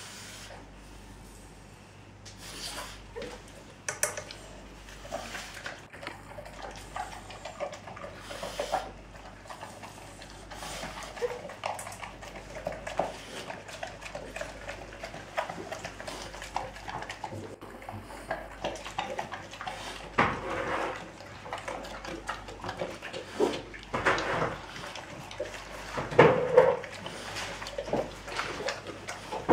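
Dog eating chunks of raw meat from a stainless steel bowl: wet chewing, smacking and licking, with occasional sharp clicks of the bowl. It starts about two seconds in and grows louder near the end.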